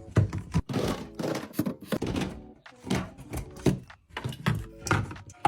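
A quick, uneven series of thunks, taps and clicks from packaged food, bottles and containers being handled and set down in a fridge or storage bins.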